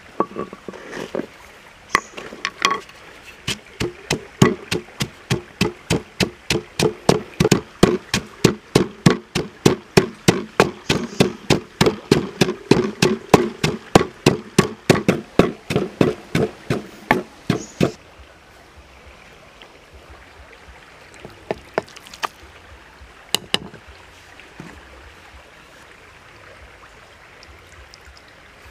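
Wooden pestle pounding in a wooden mortar, crushing garlic and spices with steady strokes about three a second. The pounding stops about 18 seconds in, followed by a few scattered knocks.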